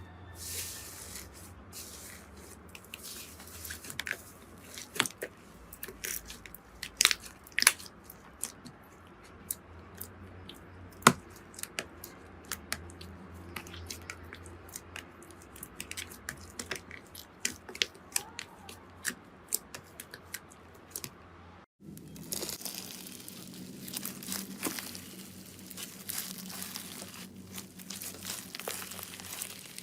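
Slime being squeezed and stretched by hand, giving irregular sharp crackles and pops over a soft rustle. About 22 seconds in there is a brief break, then a denser run of crackling.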